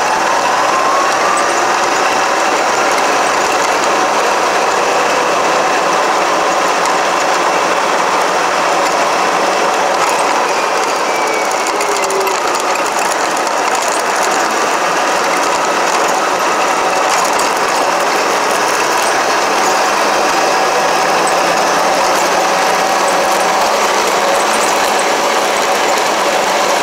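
RC car's motor and gear drivetrain whining steadily with a gritty gear rattle as it drives over dirt. The whine rises in pitch briefly near the start as it speeds up.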